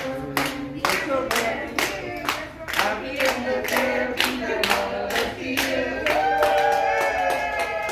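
A group of people singing a celebratory song together while clapping in time, about two claps a second. The clapping stops about six seconds in as the singers hold a long final note.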